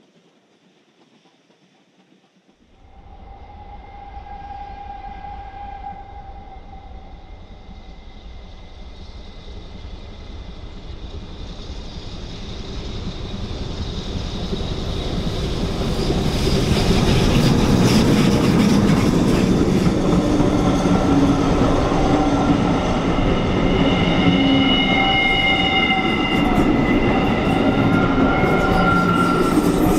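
Steam-hauled train, headed by the British Railways Standard 9F 2-10-0 locomotive, approaching and passing: the sound starts abruptly about three seconds in and grows to its loudest from about halfway, with a heavy rumble of wheels on rail and several high steady tones that come and go.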